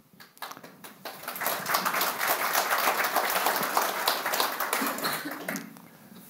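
Audience applauding: the clapping builds up over the first second or so, holds steady, then dies away shortly before the end.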